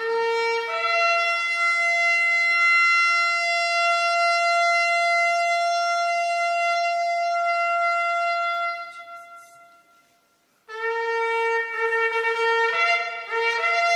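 Shofar blown: a short low note jumps up to one long held higher note that fades out about nine seconds in. After a second of silence come shorter blasts that step back and forth between the same two notes.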